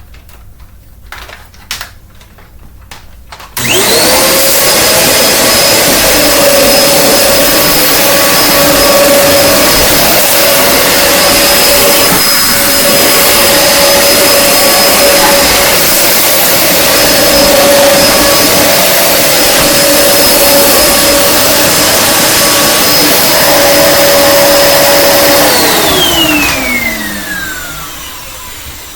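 2007 Dirt Devil Express Vac vacuum cleaner switched on about four seconds in, its motor running loud and steady with a high whine for about twenty seconds. It is then switched off and its motor winds down with a falling pitch near the end. A few light clicks come before it starts.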